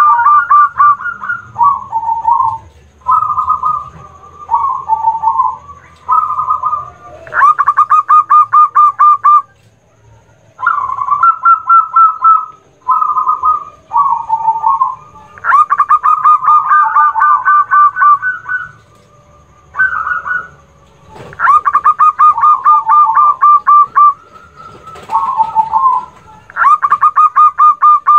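Zebra doves (perkutut) cooing: loud, rapidly pulsing trilled phrases a few seconds long, repeated over and over, often two birds overlapping at slightly different pitches, with short pauses between bouts.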